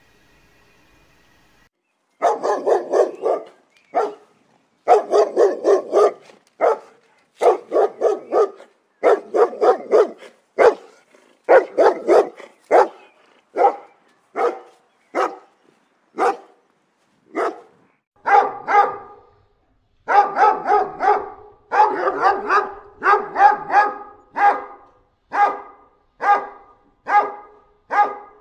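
Dog barking, starting about two seconds in. It barks in quick runs of several barks at a time, then settles into single barks about a second apart near the end.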